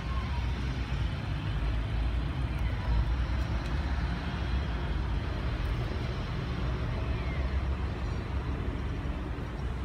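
Steady outdoor street noise, mostly a low, unsteady rumble with an even hiss above it, and a few faint short whistling glides.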